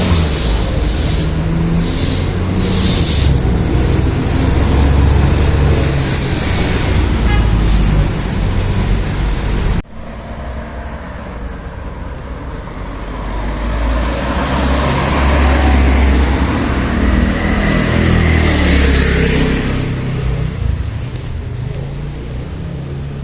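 Road traffic: motor vehicles running past with engine rumble and tyre noise. The sound breaks off abruptly about ten seconds in, then another vehicle swells past and fades away.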